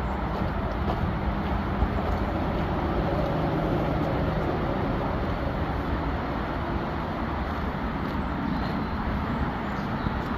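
Steady rumble of road traffic, with a faint engine hum running under it.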